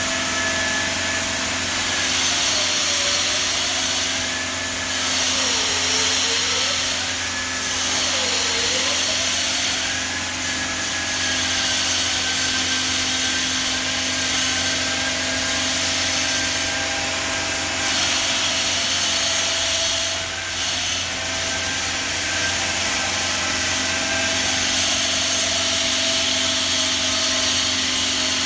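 Denver 5-axis CNC bridge saw cutting 20 mm black granite: steady machine noise with a high hiss and a whine that dips in pitch three times in the first nine seconds, then holds level.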